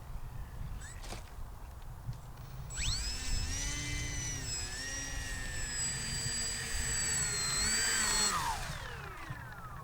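Volantex Saber 920 RC plane's electric motor and propeller whining. The pitch shoots up about three seconds in as the throttle opens, holds high for about five seconds with small wavers, then falls away steadily near the end, with a low wind rumble underneath.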